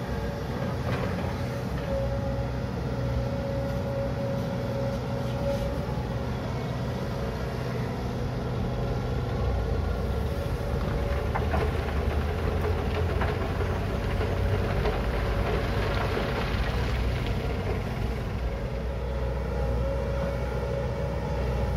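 Volvo crawler excavator's diesel engine and hydraulics running under load as it swings and dumps soil into a dump truck, a steady drone with a high whining tone through it. A few sharp knocks come around the middle.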